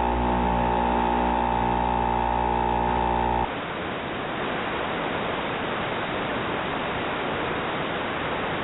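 Audio channel of an analog FPV video receiver: a steady electrical hum with many tones, which cuts off suddenly about three and a half seconds in and gives way to even static hiss as the video signal is lost.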